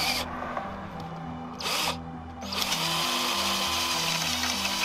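Cordless drill working at a motorcycle footpeg mount: two short bursts, then running steadily from about halfway with a faint rising whine.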